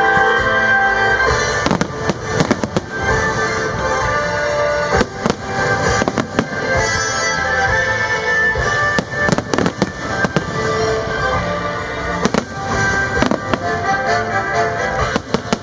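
Aerial firework shells bursting: sharp bangs start about a second and a half in and come at irregular intervals, often several in quick succession. Music plays throughout.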